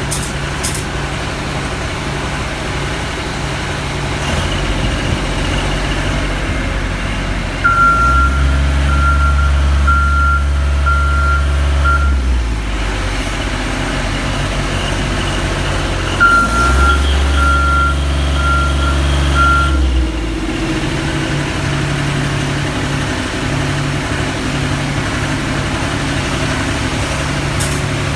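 A heavy vehicle's engine running steadily, with its backup alarm beeping about twice a second in two runs of about four seconds each; the engine gets louder while the alarm sounds.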